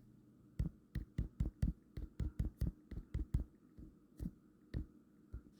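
Fingertips tapping quickly on a phone touchscreen, about fifteen dull taps at an uneven pace, as when typing in a login.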